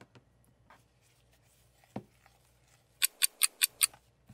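A quick run of about six bright, ringing ticks, five or six a second, lasting under a second near the end, like an edited clock-ticking sound effect marking time passing. Before it, a single soft knock about halfway through.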